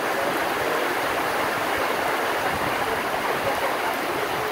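Heavy storm rain pouring down steadily, with runoff water splashing onto the ground.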